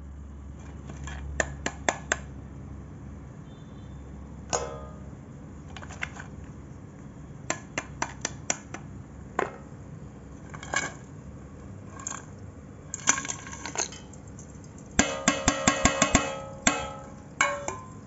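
Pieces of multani mitti (Fuller's earth clay) clicking and clinking against a stainless steel bowl, in scattered bunches of sharp knocks with a short metallic ring. The densest, loudest run of clinks comes about three quarters of the way in.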